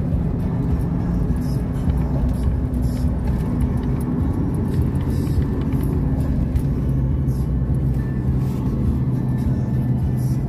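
Steady road and engine noise inside a moving car's cabin, with music playing over it.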